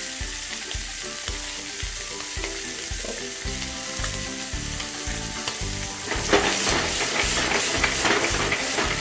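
Lamb T-bone steak sizzling as it fries in a pan, the sizzle growing louder about six seconds in.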